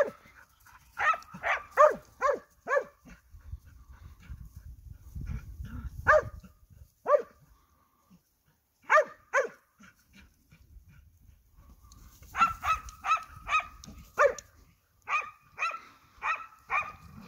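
Hunting hound barking at wild boar it is holding at bay: sharp, high barks in quick runs of about two a second, with single barks and short pauses between the runs.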